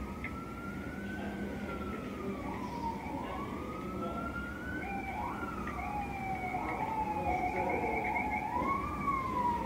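Several emergency-vehicle sirens wailing at once, their rising and falling tones overlapping and getting louder toward the end, over a steady low rumble.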